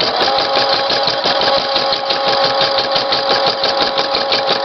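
Brother PE-770 computerised embroidery machine stitching a butterfly's antennae: a rapid, even clatter of needle strokes over a steady motor whine that sets in just after the start.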